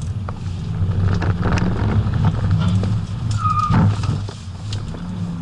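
BMW 535d's 3.0-litre twin-turbo straight-six diesel running at speed, its note shifting up and down in pitch, with scattered rattles and a brief high tone and knock about three and a half seconds in.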